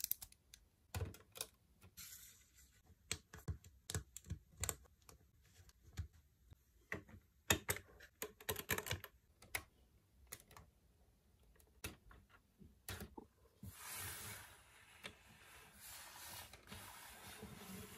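Plastic Lego bricks clicking and clattering as they are handled and pressed together by hand: faint, irregular clicks, bunched more closely around the middle, with a short scrape about three quarters of the way through.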